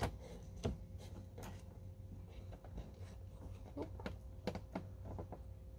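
Light handling noise: scattered soft taps and clicks of plastic pots and potting gear being moved, over a steady low hum.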